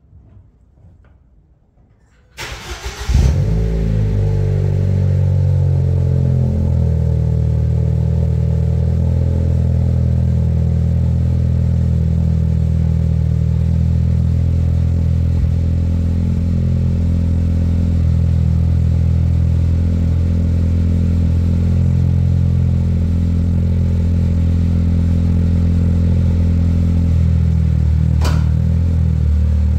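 Ford Fiesta ST engine cold-started: the starter cranks briefly about two and a half seconds in, the engine catches with a short flare of revs, then settles into a loud, steady cold idle. A single sharp click sounds near the end.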